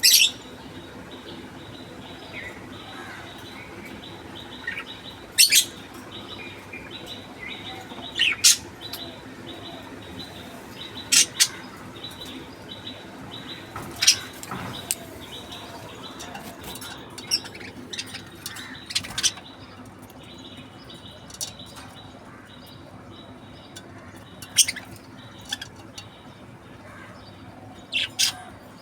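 Budgerigar giving short, sharp chirps every few seconds, with softer chirps in between.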